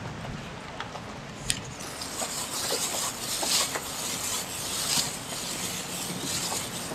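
Hands in thin plastic gloves mixing grated, squeezed cassava with chopped chives and spice paste: plastic rustling and crumbly scrunching in uneven swells, starting about two seconds in. A single sharp click comes just before it.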